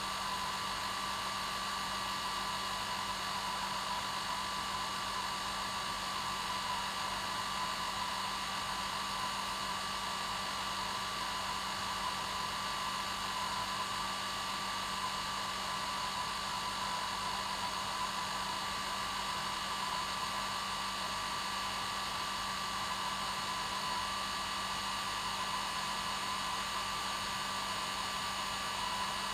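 Hair dryer running steadily: an even rush of air with a steady whine from the motor and a low hum, unchanging throughout.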